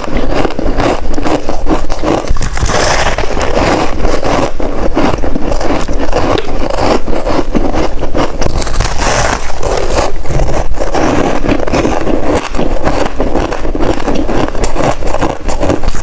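Close-miked biting and chewing of a soft chunk of freezer frost: a dense, unbroken run of crunching and crackling.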